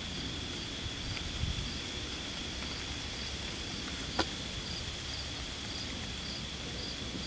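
Insects trilling steadily on one high pitch over a low background rumble, with a single sharp click about four seconds in.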